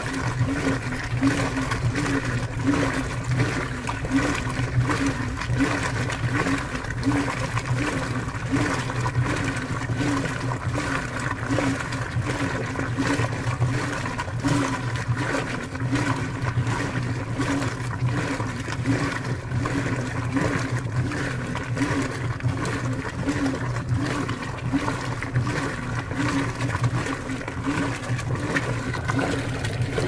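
Brastemp Vantage 8.5 kg top-load washing machine running mid-cycle: a steady motor hum with a pulse repeating about twice a second, and water moving in the drum.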